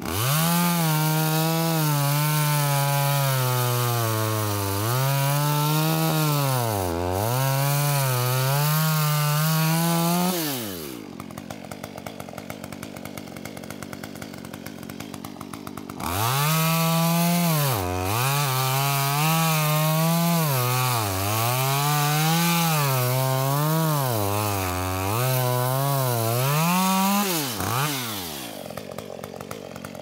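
Chainsaw running at high revs and cutting, its pitch sagging and recovering again and again under load. It cuts in two spells of about ten seconds, with a quieter stretch of about six seconds between them, and drops off again near the end.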